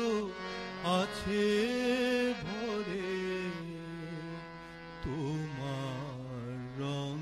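Devotional music: a voice sings long held notes that slide and waver in pitch over a low sustained accompaniment.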